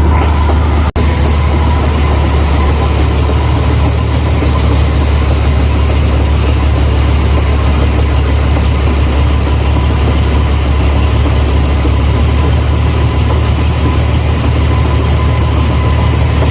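Rice combine harvester's engine and machinery running steadily, a heavy low drone with a constant whine over it; the sound drops out for an instant about a second in.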